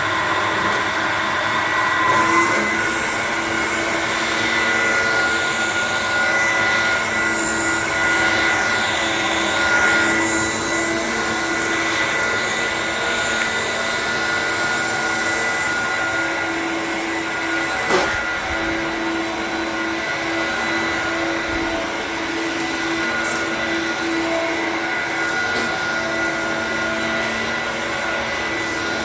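Dyson DC01 bagless upright vacuum cleaner running steadily, its motor giving a constant whine over the rush of air, with a single short knock about eighteen seconds in.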